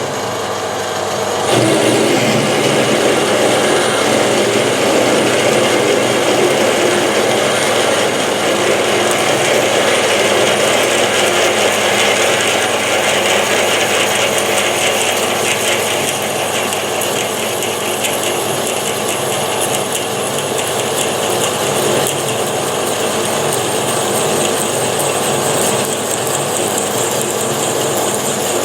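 Metal lathe starting up and running steadily while machining a hole in the workpiece, a dense mechanical running and cutting noise that steps up in level about a second and a half in.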